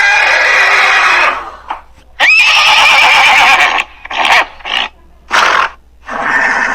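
Horse whinnying: two long, loud whinnies, then a few shorter calls.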